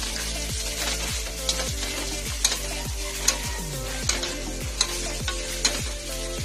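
Metal spatula scraping and clinking against a metal wok as deep-fried mantis shrimp are tossed, over a steady sizzle of hot oil. Sharp clinks come about once or twice a second.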